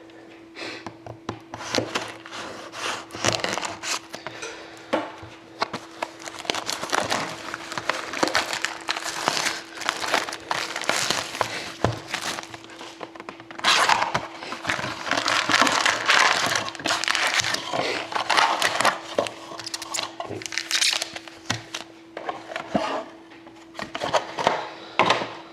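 Plastic wrapping on trading card boxes and packs being torn open and crinkled by hand, with continual irregular crackling, rustling and tearing that gets busiest about halfway through.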